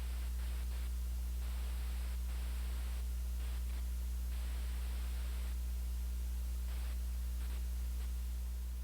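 Steady low electrical hum with a layer of hiss, like static on a radio or broadcast feed.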